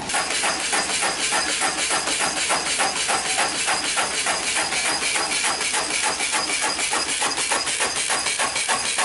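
Wood stick-cutting machine running, chopping veneer into thin splints with a rapid, even clatter of several strokes a second over a steady hiss.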